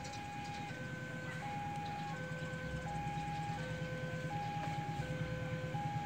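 Railway level-crossing warning alarm repeating an electronic two-tone chime, each tone lasting about two-thirds of a second, the signal that a train is coming. Under it, the low drone of an approaching train grows slowly louder.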